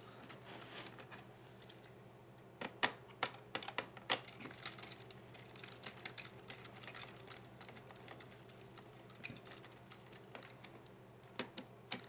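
Faint, scattered clicks and ticks of a small screwdriver working the silver screws that hold a laptop's CD-ROM drive, starting about two and a half seconds in, over a steady low hum.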